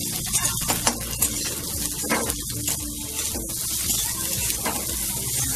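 Chopped carrot and onion sizzling in hot oil in a steel wok, stirred with a metal spatula that scrapes and clinks against the pan again and again.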